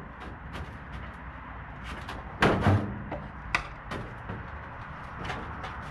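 Clunks and knocks from an old CZ motorcycle being shifted about in a small steel box trailer. The loudest is a double clunk about halfway through, followed by a sharp click, with lighter knocks in between.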